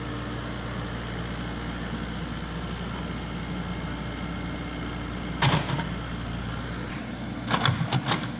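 Excavator engine running steadily, with a sharp knock about halfway through and a quick cluster of three or four knocks near the end.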